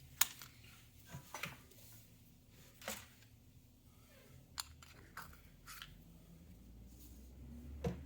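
A handful of light, separate clicks and taps, about eight in all and irregularly spaced, from small electronics and plastic parts being handled on a workbench, over a faint low hum.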